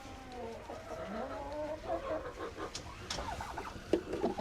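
Several hens clucking and giving drawn-out, wavering calls that overlap one another, with a few sharp clicks about three seconds in.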